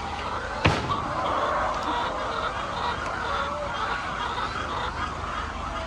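A flock of chickens clucking and calling over one another. A single sharp knock comes about a second in.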